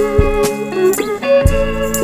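Background music: a guitar melody with some sliding notes over a steady drum beat.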